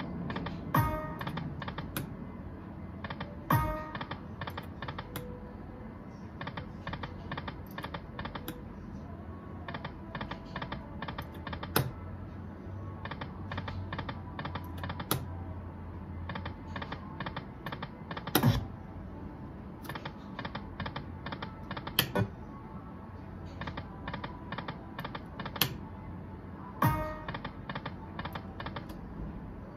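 Aristocrat Dragon Link Golden Century poker machine spinning its reels again and again: runs of rapid clicking reel-spin sounds, with a sharp knock every three to four seconds as a new spin begins, over the game's electronic music.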